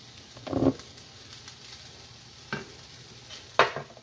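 Onions, peppers, ginger and garlic sizzling in olive oil in a nonstick frying pan. Over the steady sizzle come kitchen knocks and clatters: a heavy one about half a second in, a lighter one midway, and a sharp clack near the end, the loudest.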